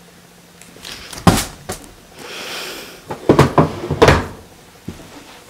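Handling noise from a USB cable being fiddled with and plugged into a laptop: a few sharp knocks and clicks, with a short rustle between them.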